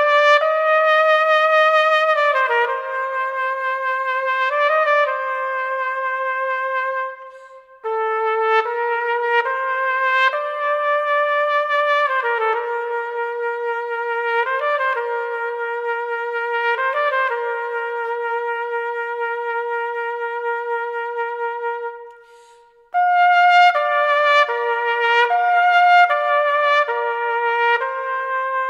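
Unaccompanied solo trumpet playing a slow melody of long held notes, with two short pauses between phrases, about seven and twenty-two seconds in.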